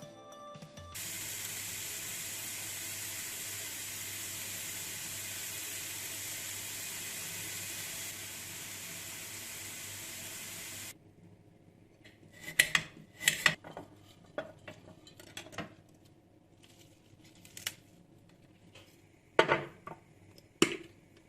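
Kitchen work: a steady hiss for about ten seconds that cuts off suddenly, then a scatter of sharp clinks and knocks of dishes and utensils being handled.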